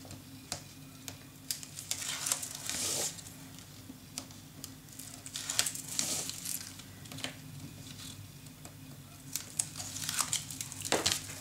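Release liners being peeled off strips of double-sided tape on a paper page: intermittent crinkling and rustling with light clicks, strongest about two to three seconds in, about six seconds in and near the end.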